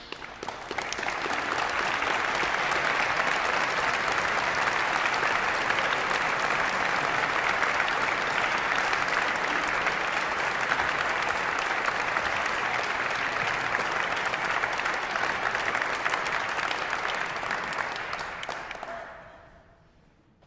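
Audience applauding: the clapping builds within the first second or two, holds steady, and fades away near the end.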